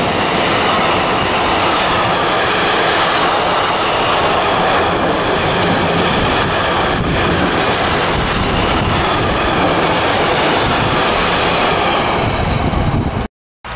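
Container freight train's wagons rolling past on the track, a steady loud rolling noise of steel wheels on rail. It cuts off suddenly near the end.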